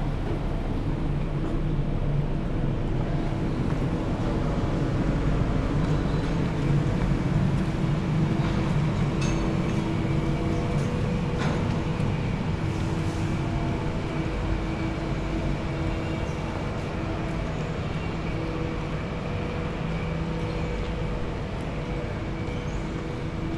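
Steady rumble of a running vehicle, with a few level hum tones over it and no distinct events.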